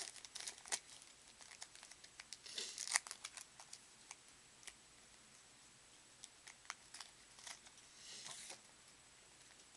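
A football trading card pack's wrapper being torn open and crinkled, and the cards being handled, with scattered small clicks and brief crinkling rustles about two and a half seconds in and again near the end.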